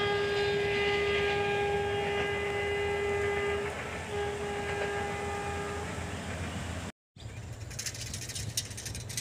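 A meter-gauge train's horn sounds over the train's running noise: one long blast of about four seconds, then a shorter one of about two seconds. The running noise cuts off suddenly about seven seconds in, leaving quieter outdoor sound.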